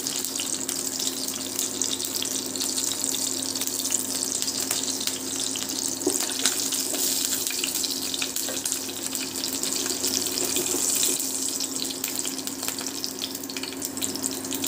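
Panch phoron seeds and dried red chillies sizzling in hot oil in a frying pan: a steady hiss with many small scattered pops as the tempering begins to splutter.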